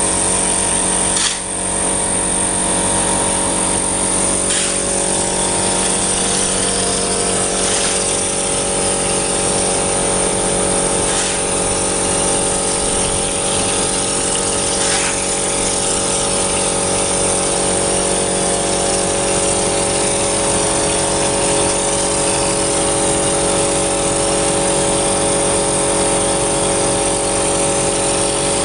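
2B mortar spraying machine running: its electric motor and air compressor run steadily while the screw pump feeds mortar to the spray gun. A few brief sharp clicks stand out in the first half.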